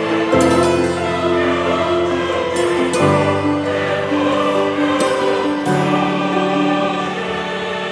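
Background music: a choir-like vocal piece of held chords, changing roughly every two to three seconds.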